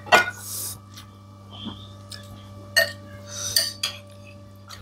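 Utensils and plate clinking and scraping while someone eats a meal, a few short sharp clinks spread through, with brief hissy eating noises near the microphone.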